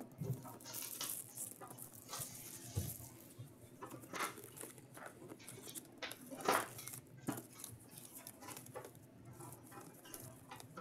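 Plastic shrink wrap being slit and pulled off a cardboard trading-card box, with crinkling and scattered light taps and scrapes as the box is handled and opened. A few louder strokes stand out.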